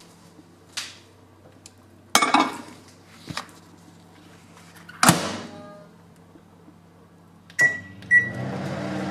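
A microwave oven being loaded and started: several clunks and knocks, the loudest about five seconds in with a brief ringing, then two short keypad beeps near the end and the oven starting to run with a steady hum.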